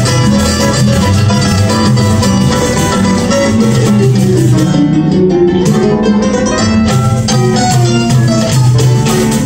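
A live choro ensemble of acoustic guitars, cavaquinho and other plucked strings playing a melody over a walking guitar bass line.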